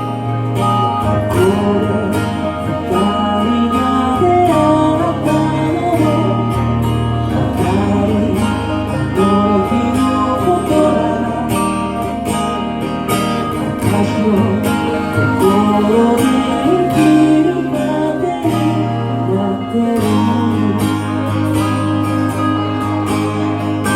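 Band music led by guitar over steady, sustained bass notes.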